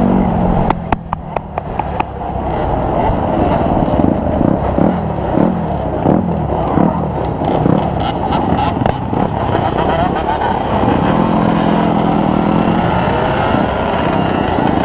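Dirt bike engines revving, their pitch climbing and dropping again and again, with a few sharp clicks in the first couple of seconds.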